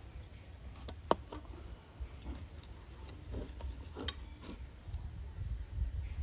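Two batter-filled glasses being set down on a stand inside a kadai of hot water: a sharp clink about a second in, then several lighter knocks and taps, over a low steady rumble.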